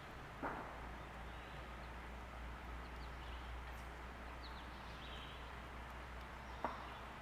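Quiet outdoor background with a low steady hum, a few faint high chirps from distant birds, and two short soft knocks, one about half a second in and one near the end.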